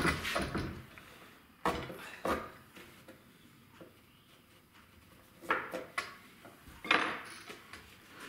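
Parts of a wooden woodworking jig being handled and set down on a workbench: about seven separate knocks and clatters with quiet between them, the loudest right at the start and about seven seconds in.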